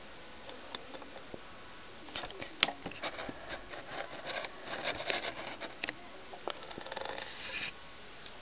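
Close scratching and rustling right at the microphone, with light clicks and taps, busiest through the middle, then a short hiss of something rubbing against it near the end.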